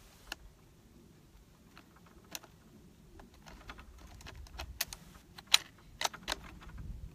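Sharp clicks and light metallic rattles of a Thompson/Center Compass bolt-action rifle being readied at the bench: the bolt and magazine being worked. The loudest click comes about five and a half seconds in, with a quick run of clicks just after.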